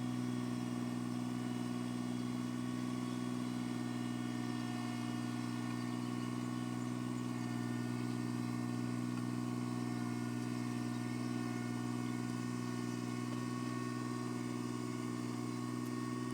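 John Deere tractor engine running at a steady, unchanging speed, an even drone throughout.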